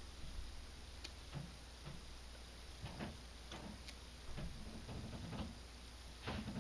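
Faint, irregular soft ticks and knocks, one every half second to second or so, over a low steady hum.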